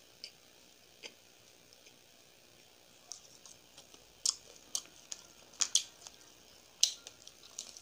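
Wet mouth clicks and smacks of someone chewing soft fried gol pitha. They are sparse at first, then come more often and louder after about three seconds.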